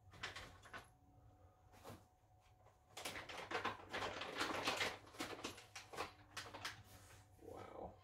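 Rustling and scraping of packaging material being handled and pulled off a new bike. A few short scrapes early on give way to a dense run of rustling in the middle, then scattered scrapes again.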